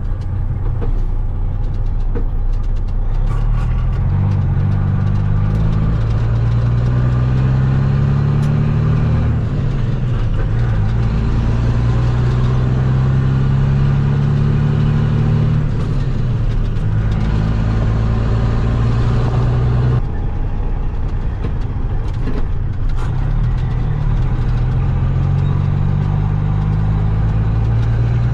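Heavy truck engine pulling up through the gears: its pitch climbs for several seconds, drops at each shift and climbs again, about four times.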